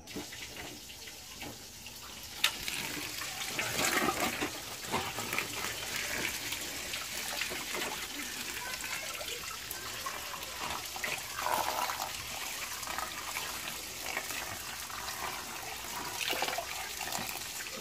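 Running water splashing as betel leaves are washed in it. It starts faintly and grows stronger after a sharp knock about two and a half seconds in.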